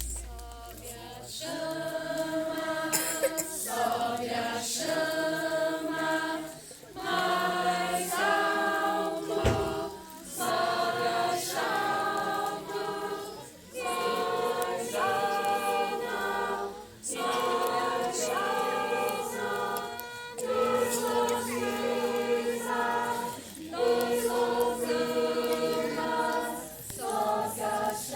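A group of voices singing together, unaccompanied, in phrases of a few seconds with short pauses for breath between them.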